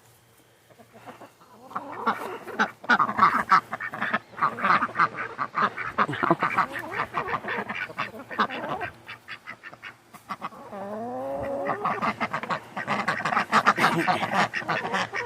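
Several ducks quacking in rapid, busy chatter, with a lull about ten seconds in and a few short rising calls before the chatter resumes.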